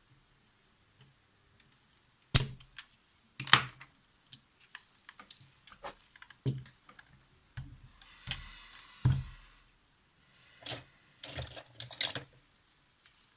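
Small metal tools clicking, tapping and scraping against the SX-70 camera's parts while working the flash legs loose from the circuit board: a scatter of sharp clicks with a short rasping scrape partway through and a quick run of clicks near the end.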